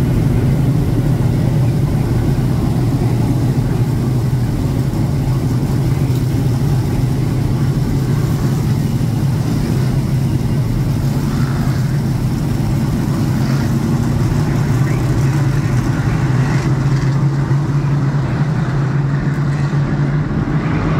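A pack of big-block modified dirt cars running together at low speed under caution, their big-block V8 engines making a steady, loud low drone.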